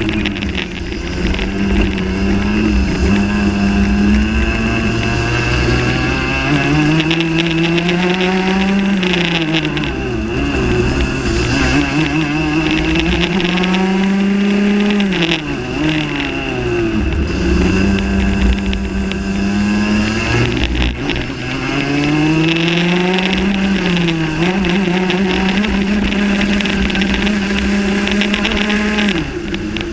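Rotax Max 125cc two-stroke kart engine at racing speed, revving up along the straights and dropping off sharply for each corner, several times over, with wind rumble on the onboard microphone.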